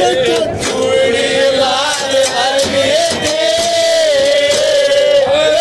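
Men singing a Haryanvi ragni folk song together in long held notes, with sharp hand claps scattered through it.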